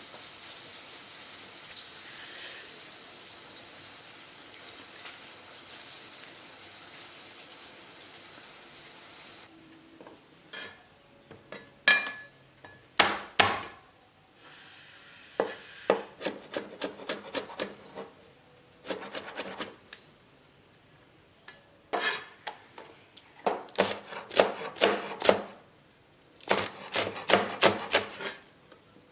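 Food sizzling steadily in hot frying oil, which stops abruptly about nine seconds in. After that come bursts of quick sharp taps and knocks of a knife and kitchen utensils on a wooden cutting board and pan.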